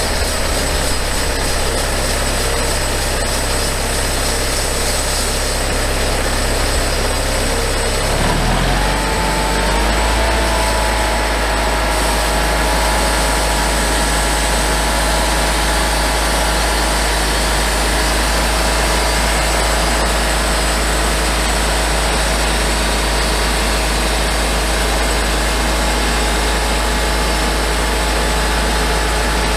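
Engine of a homemade band sawmill running steadily, then revved up about eight seconds in and held at the higher speed.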